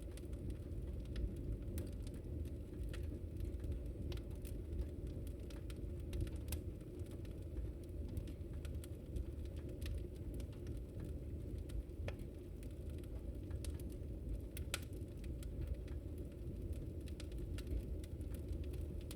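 Wood fire burning: a steady low rumble with scattered, irregular sharp crackles and pops of burning wood.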